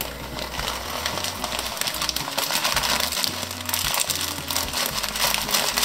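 Pot of meat-and-chickpea broth at a rolling boil, a dense, crackly bubbling that runs on without a break.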